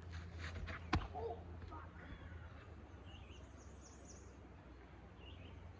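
Faint outdoor ambience with a steady low hum, a single sharp click about a second in, and a few faint high bird chirps.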